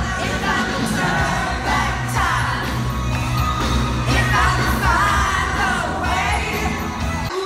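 Loud live concert music with heavy bass, and voices in the crowd singing along. It cuts off abruptly near the end.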